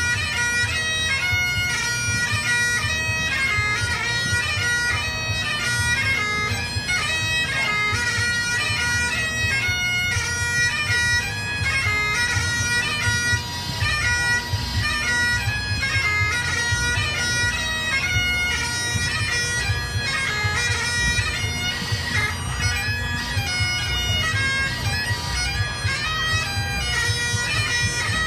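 Highland bagpipe playing a brisk dance tune for Highland dancing: a melody moving between notes several times a second over its steady drones, with no break.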